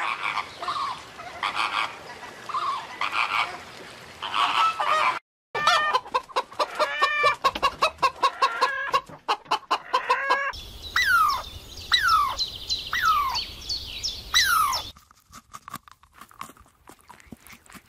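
Domestic poultry calling in several short edited clips: chickens clucking, then a run of rapid repeated calls, then a series of falling cries about two a second. Each clip cuts off abruptly into the next.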